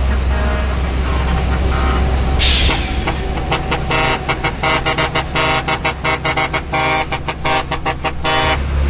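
Heavy truck's horn sounding over the steady low rumble of its diesel engine. It gives a few tones at first, then a burst of air hiss about two and a half seconds in, then a rapid string of short, staccato toots that stops shortly before the end.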